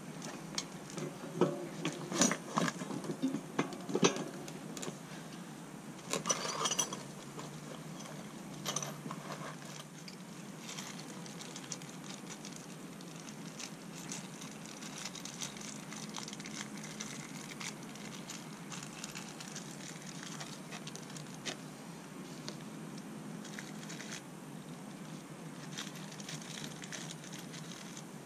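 Clinks and knocks of metal parts being handled while a 36-inch unicycle's frame is fitted onto the wheel. Most of them come in the first nine seconds, then only a few faint ticks over a low steady room hum.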